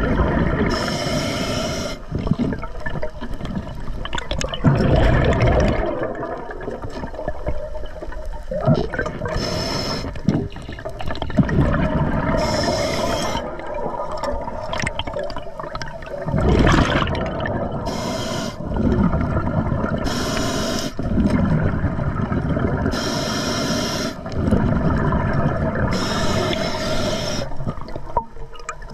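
Underwater scuba breathing through an Atomic regulator: short hissing inhalations, about seven of them a few seconds apart, alternate with rumbling, bubbling exhalations.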